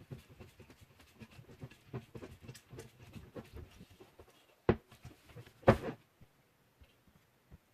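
Objects being handled on a hard surface: a run of light clicks and rustles, then two sharp knocks about a second apart past the middle.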